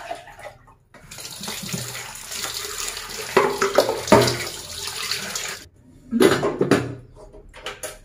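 A kitchen tap runs into a sink for about five seconds, then stops. A few short clatters follow.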